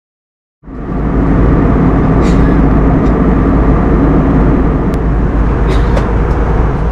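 Jet airliner cabin noise in flight: steady engine and airflow noise with a deep rumble and a few constant hum tones, cutting in suddenly about half a second in.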